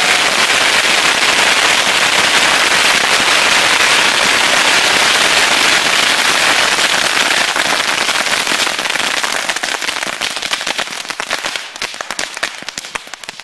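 Thousands of bottle rockets firing at once from a homemade launcher: a dense, continuous crackle of launches and bangs. About eight seconds in it thins into separate sharp pops and fades toward the end.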